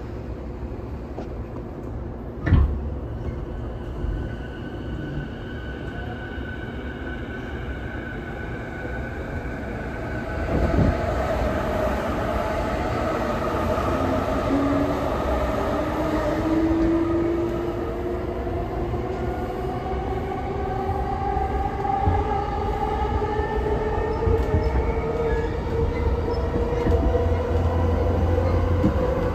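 Interior of a JR East E233-series electric train. There is a single thump a couple of seconds in. From about ten seconds in, the inverter-driven traction motors whine, rising steadily in pitch as the train accelerates, over the rumble of wheels and running gear.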